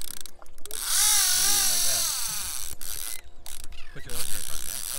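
Conventional saltwater fishing reel working under load, ratcheting, with a wavering whine of line running off against the drag about a second in that lasts about a second, as a fish pulls on the line.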